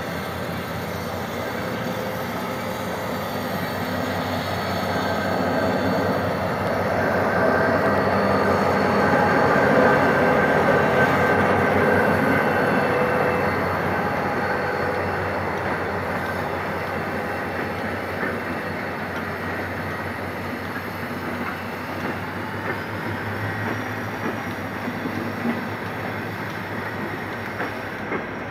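GM GT22CW-2 diesel-electric locomotive, its two-stroke EMD 645 engine running under load as it pulls a passenger train away from a station. It grows louder as it passes close about ten seconds in, then fades, and the coaches rolling past bring a clickety-clack of wheels over rail joints near the end.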